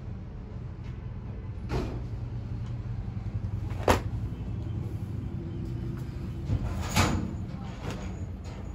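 Handling knocks and clunks, three sharp ones about two, four and seven seconds in, over a steady low hum.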